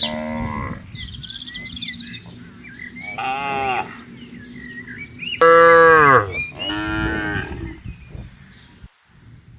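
Cattle mooing: four long calls, the loudest about halfway through. Faint bird chirps can be heard between the first two calls.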